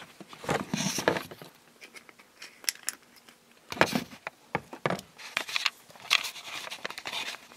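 Irregular clicks, knocks and plastic rustling from handling a small battery flashlight-lantern and fumbling to switch it on, in short bursts with quieter gaps between.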